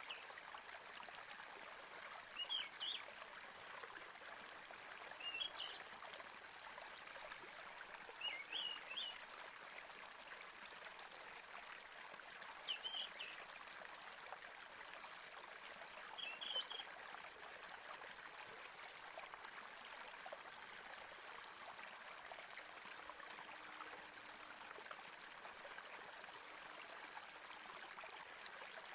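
Soft, steady rush of running water, like a stream. A small bird chirps briefly six times, every three to four seconds, over the first half.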